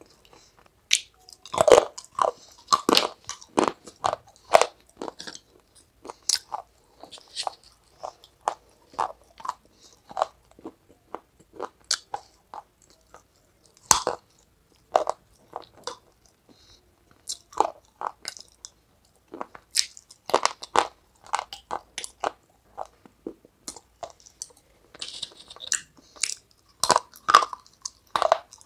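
Close-up crunching and chewing of brittle brown shards dipped in white powder: clusters of sharp, crackling bites and chews with short pauses between mouthfuls.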